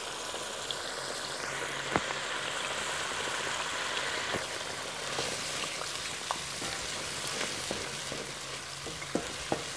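Ground onion and cumin seeds sizzling in hot oil as the onion is browned, a steady frying hiss. A few short sharp clicks, several near the end, from the wooden spatula striking the pan during stirring.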